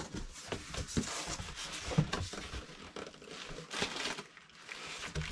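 Cardboard box being opened by hand: flaps pulled back and packaging rustling and crinkling, with scattered small knocks and scrapes.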